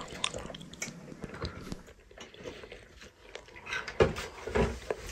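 People eating porridge from foil ration trays in a small wooden room: chewing, with small clicks and scrapes of utensils on the trays. A few louder knocks come about four seconds in.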